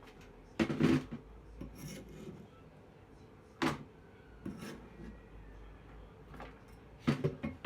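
A container being wiped dry with a cloth: short bursts of rubbing and scraping, four or so, the loudest just after the start and near the end.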